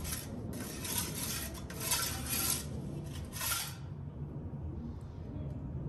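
Metal pizza peel scraping on the floor of a wood-fired oven while turning a pizza, in four short scrapes over about the first four seconds. After that only a low steady background remains.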